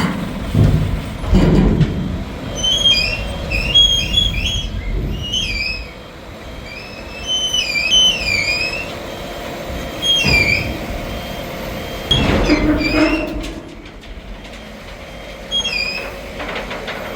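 Container transport with a truck-mounted HDS hydraulic loader crane: a heavy machine's low rumble with loud metal clunks about a second in, around ten seconds and near thirteen seconds. Many short, high, falling squeals run throughout.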